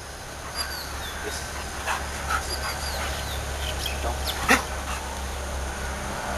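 Rottweiler making short excited whines and yips while it holds a down and sit for its trainer, with one sharper, louder sound about four and a half seconds in.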